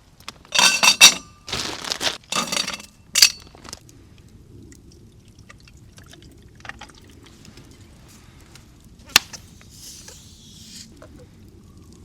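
Liquid poured into a cup in a few loud splashing spurts over the first few seconds. A single sharp click about nine seconds in, then a brief hiss.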